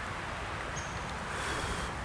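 Outdoor ambience with wind rumbling on the microphone, a short high chirp about a second in, and a brief rustle near the end.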